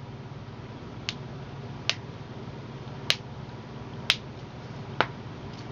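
Finger joints being cracked by hand: five sharp pops, about a second apart.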